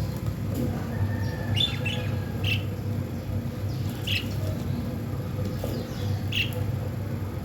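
Budgerigars chirping: about five short, high chirps, spaced a second or two apart, over a steady low hum.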